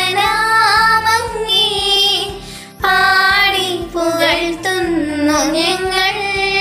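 A Malayalam devotional song to St. Joseph: a high solo voice sings a slow melody with wavering held notes over instrumental accompaniment with a steady beat. There is a short break between phrases about two and a half seconds in.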